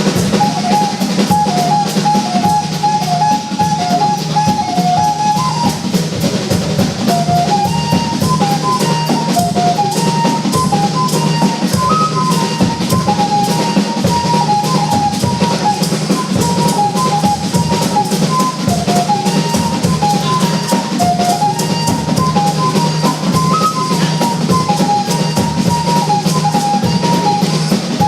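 Instrumental music: a drum kit playing a fast, busy rhythm under a repeating melody of short notes.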